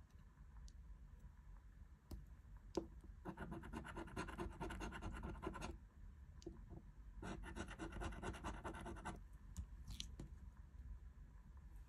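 A coin scratching the coating off a paper scratch card in two bouts of rapid back-and-forth strokes, each lasting about two seconds, with a sharp tap shortly before the first bout.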